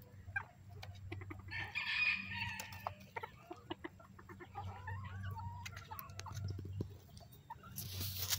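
Chickens clucking, with one louder, drawn-out call about two seconds in, over a steady low hum. A short burst of noise comes just before the end.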